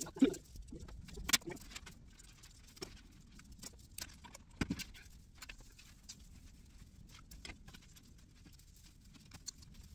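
Handling of a string of Christmas lights on an artificial tree: small plastic clicks and rattles with rustling of the branches, and a few sharper knocks, about a second in and again near five seconds.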